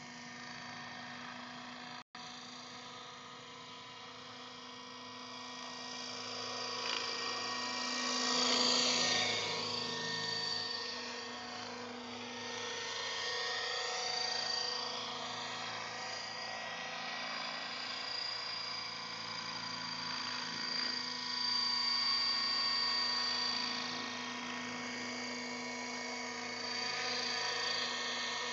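Align T-Rex 600 radio-controlled helicopter in flight: a steady whine of its motor and rotor blades that swells and eases several times as it manoeuvres nearer and farther.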